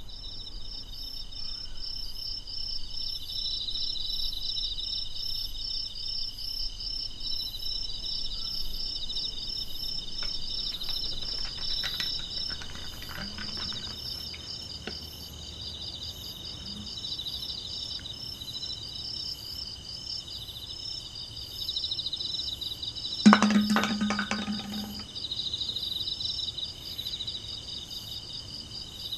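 A steady chorus of insects chirping in fast, pulsing high trills. About three-quarters of the way through there is one loud, sudden clunk followed by a short low hum.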